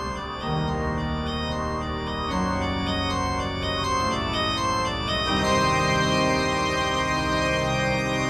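Background soundtrack music on an organ-like keyboard: sustained chords with a short melody above them, the chord changing about half a second in, again a couple of seconds later, and once more past the middle.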